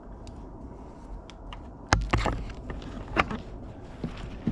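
Plastic connectors and wires of a Yamaha Banshee wiring harness being handled and unplugged: a scatter of small clicks and rattles, with a sharp snap about two seconds in and another about a second later.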